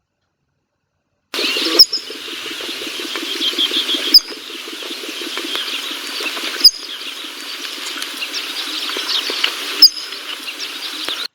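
Field recording of a bird calling, with runs of quick high notes over a steady background hiss. It starts after about a second of silence and is broken by four sharp clicks, then cuts off abruptly.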